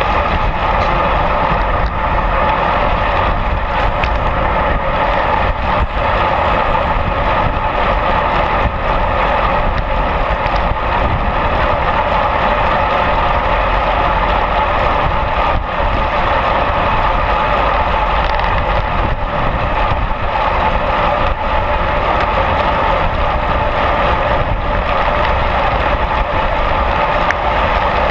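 Steady, loud rush of wind and tyre noise from a road bike riding at race speed in a bunch, picked up by a camera mounted on the bike.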